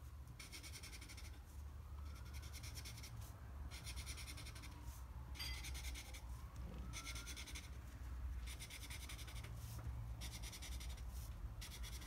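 Felt-tip permanent marker (Artline 70) scribbling on paper in quick bursts of short strokes with brief pauses between them.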